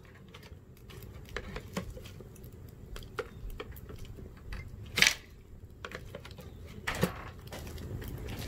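Fire crackling inside a toaster with cell phones burning in its slots: scattered small clicks and ticks, with two sharp loud pops about five and seven seconds in.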